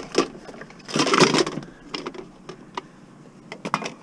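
Scrap items being shoved and shifted in a crowded car cargo area: scattered knocks and clatter of metal and plastic. About a second in there is a louder scraping rustle lasting about half a second, with a few more knocks near the end.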